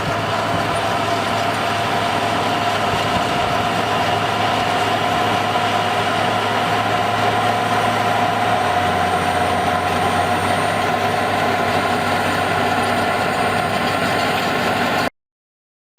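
Heavy machine's engine running steadily, with a constant whine over a low hum; the sound cuts off abruptly near the end.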